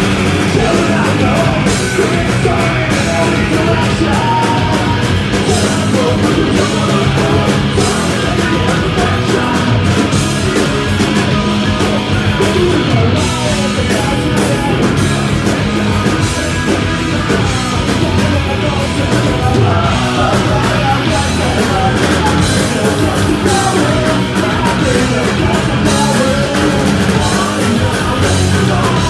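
Live punk rock band playing loud: distorted electric guitars, bass and drums under a shouted lead vocal, with a guitarist shouting backing vocals.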